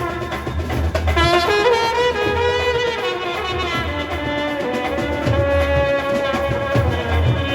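Indian brass band with saxophones playing a Sawari dhun, a Muharram procession tune, in held melodic phrases over a low drum beat.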